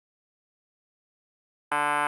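Silence, then a steady, buzzy synthesizer note from Xfer Serum cuts in sharply near the end and holds at one pitch.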